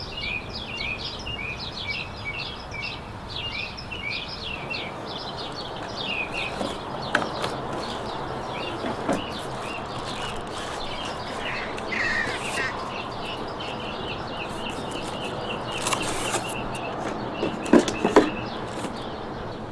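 Small birds chirping in quick, repeated short notes over steady background noise, with a few sharp clicks and knocks near the end.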